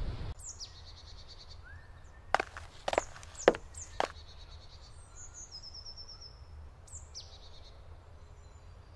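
Songbirds chirping and trilling in short, high, falling phrases over a low steady rumble of outdoor background noise. A few seconds in come four sharp knocks, about half a second apart.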